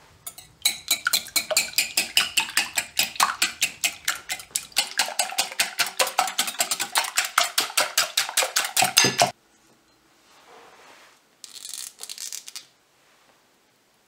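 Two eggs being beaten by hand in a glass mixing bowl, the utensil clinking rapidly and evenly against the glass at about five strokes a second, then stopping abruptly. A short, softer clatter follows near the end.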